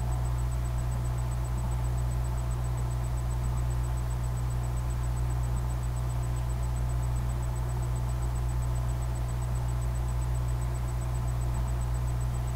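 Steady low hum with an even hiss over it, unchanging, with no voice or other events.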